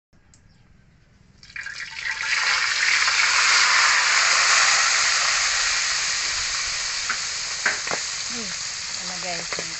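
A whole milkfish is slid into a pot of hot oil, which breaks into a loud sizzle about a second and a half in. The oil keeps frying hard and eases off slowly, with a couple of sharp clicks near the end.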